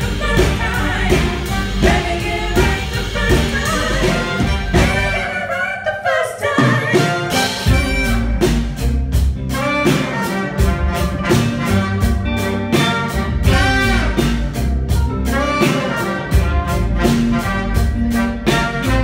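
Live band music with a steady drumbeat and pitched instruments. The beat and bass drop out briefly about five seconds in, then come back.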